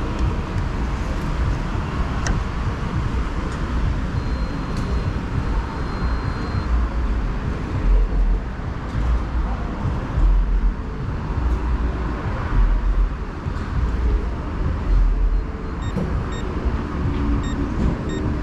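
Suzuki GSX-S1000 inline-four motorcycle under way: a dense, steady engine and riding rumble that swells in low surges about every two seconds. Near the end the engine note rises as the bike accelerates.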